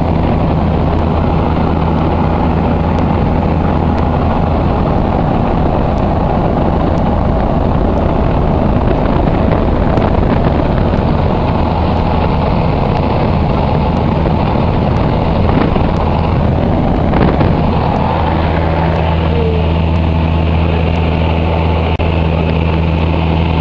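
Cessna 172's piston engine and propeller droning steadily in cruise, heard inside the cabin with a rush of air over it. The low hum turns smoother and steadier about eighteen seconds in.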